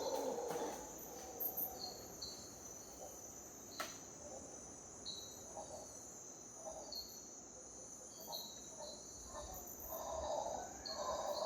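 A lull in howler monkeys' howling, filled by steady high insect buzzing and short high chirps that come in pairs every couple of seconds. The deep howling fades just after the start and swells again near the end.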